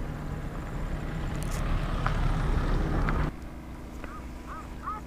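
A low rumbling noise that cuts off suddenly about three seconds in, followed by a run of short, hooked bird calls repeating over the last second or so.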